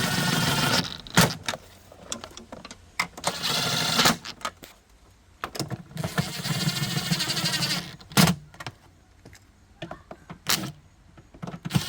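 A cordless power tool's motor whirring in three short runs, driving fasteners home, with sharp clicks and knocks of tools and parts in between.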